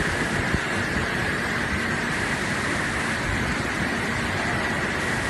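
Steady hissing machine noise from a running YAG laser welding machine, even throughout with no clear pulse or rhythm.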